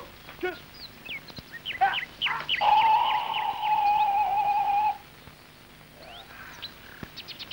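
Birds chirping: quick downward-sweeping chirps, then one long whistled note held for about two seconds. A fast trill comes near the end.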